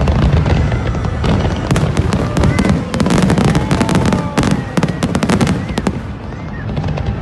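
Fireworks display going off: a rapid, dense run of crackling reports and bangs over a continuous low rumble, thickest in the middle of the stretch.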